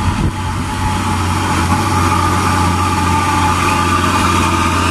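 Diesel engine of a Mitsubishi Fuso FN dump truck running steadily with a deep drone as the truck drives up and passes close by, growing a little louder. Hino 500 dump trucks follow behind it.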